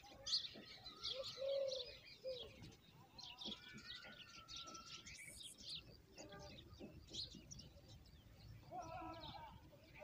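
Oriental magpie robin nestlings begging with many short, high chirps while a parent feeds them at the nest hole. A few lower, longer bird calls come about one and a half, two and a half and nine seconds in.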